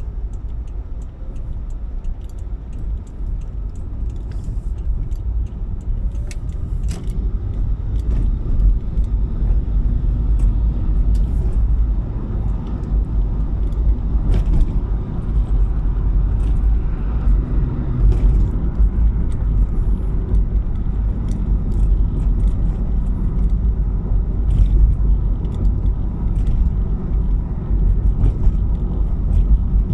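Car on the move: a steady low road and engine rumble, with scattered small clicks and rattles, growing a little louder over the first several seconds and then holding.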